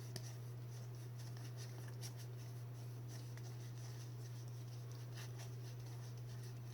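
Trading cards being handled and slid against one another, with faint scattered clicks and rustles over a steady low hum.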